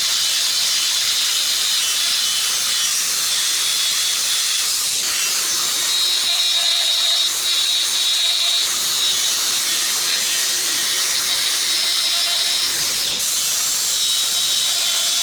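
Steady hiss with a faint high whine running through it, from a machine at work.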